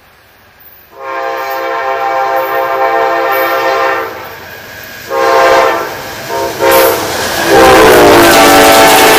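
Amtrak GE P42DC diesel locomotive sounding its chime air horn as it approaches: one long blast, a few shorter blasts, then another blast held as it passes close by, the horn's pitch dropping as it goes past. The rumble and clatter of the train passing at speed rise under the horn near the end.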